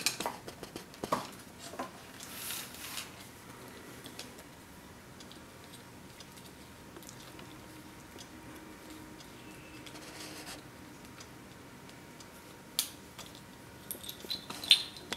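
Light clicks and scraping of hands working the decorative pieces loose from the front of a cuckoo clock. There is a scatter of clicks at first, then little for several seconds, then a sharp click and a few more clicks near the end.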